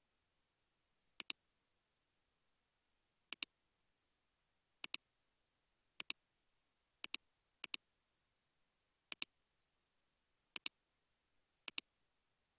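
Computer mouse clicks: nine sharp clicks spaced unevenly, each a quick double tick of press and release, over an otherwise silent background.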